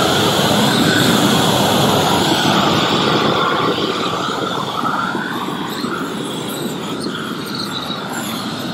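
Magnum propane roofing torch burning steadily, its flame heating the underside of a roll of torch-down modified-bitumen membrane as it is unrolled. The rushing noise starts abruptly and eases a little after about five seconds.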